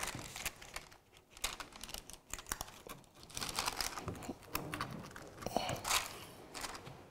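Faint scraping, crackling and crunching as hot sesame-jaggery brittle (til papdi), setting on a greased surface, is cut into shapes, with scattered short clicks.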